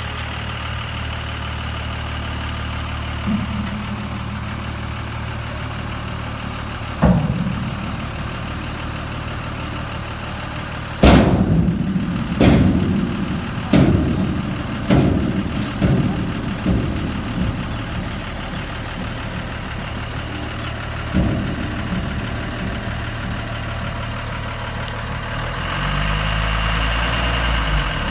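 An engine idling with a steady low hum. A run of sharp knocks about a third of the way in comes closer together and dies away, and a single knock follows later. The hum shifts in pitch near the end.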